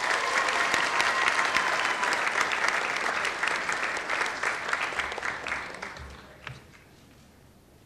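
Audience clapping for award winners, a dense patter of many hands that dies away about six seconds in.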